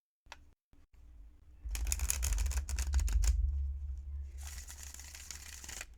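Paper tarot cards being shuffled and handled. Starting a little under two seconds in there is a rapid run of crackly card flicks, and later a smoother sliding rustle of cards.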